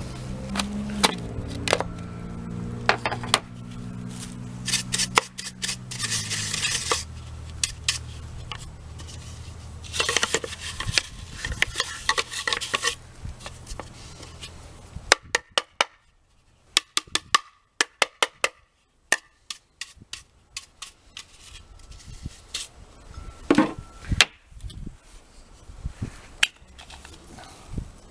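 Sharp clicks and knocks of a small portable vacuum's plastic housing and screws being handled as it is taken apart, with two stretches of brushing hiss in the first half.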